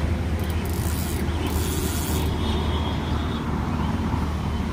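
Braided fishing line rasping as it is drawn by hand through the rod guides, in short hissing pulls over the first two seconds or so, over a steady low rumble.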